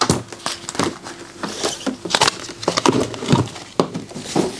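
Handling noise: a plastic vacuum-sealer bag rustling, with a run of irregular clicks, knocks and a few heavier clunks as the vacuum sealer is handled and lifted off its case.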